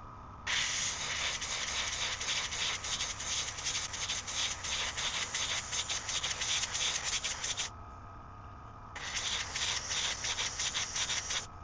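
Airbrush spraying paint in two long hisses, the first about seven seconds and the second about two and a half, with a quick flicker in strength as the trigger is worked, over a faint steady hum.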